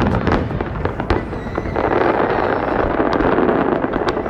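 Fireworks display going off: many sharp bangs and cracks in quick succession, with a dense run of crackling in the second half.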